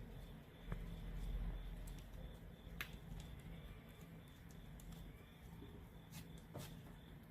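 Slime being mixed by hand: faint sticky clicks and small pops every second or two, over a low steady hum.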